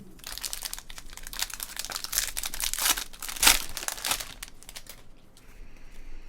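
Trading-card pack wrapper crinkling as it is torn open and handled, a dense crackle for about four seconds, loudest near the middle, then fading.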